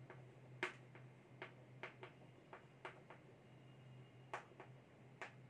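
Chalk writing on a blackboard: a dozen or so faint, irregularly spaced clicks and taps of the chalk against the board, with a pause of about a second in the middle, over a faint steady low hum.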